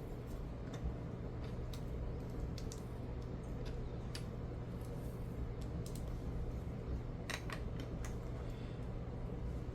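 Scattered light plastic clicks and taps of Lego pieces being handled and pressed together, a few clicks a second at most, over a steady low hum.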